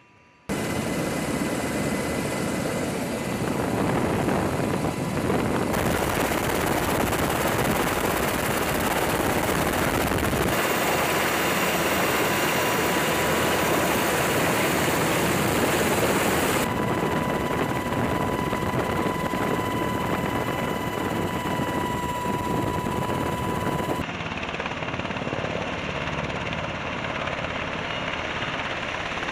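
UH-60 Black Hawk helicopters running close by: a loud, dense rotor and turbine noise with a thin steady whine over it. The level and colour shift abruptly several times.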